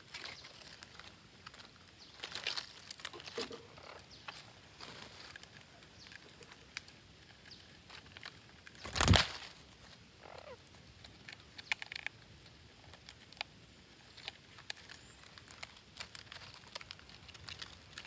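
Parakeets scratching and shuffling about in dry leaves and bark at a tree-hollow nest, with clicks and rustles throughout and a few brief calls. One loud, harsh burst comes about nine seconds in.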